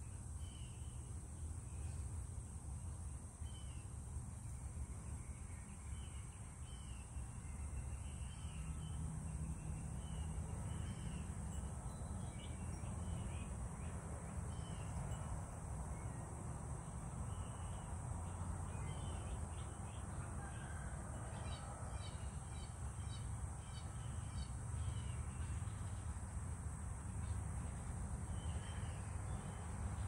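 Birds calling, with short calls scattered throughout and a denser run of them past the middle, over a steady low rumble.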